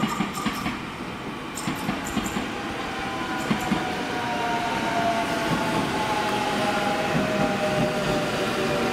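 CP Lisboa suburban electric multiple unit pulling into the platform, its motor whine falling slowly in pitch as the train slows. There are a few sharp clicks in the first few seconds.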